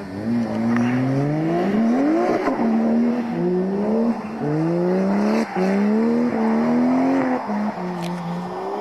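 Toyota JZX81's straight-six engine revving hard through about five rising pulls, dropping back between each, as the car is drifted. Tyre squeal runs beneath the engine.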